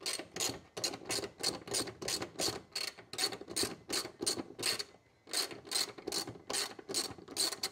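Ratchet wrench with a 10 mm socket clicking in quick back-and-forth strokes as a bolt is unscrewed, about three strokes a second, with a short pause about five seconds in.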